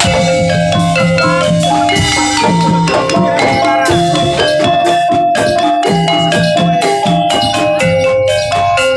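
Gamelan-style jaranan accompaniment: metal mallet instruments strike a fast, busy melody over repeated drum strokes.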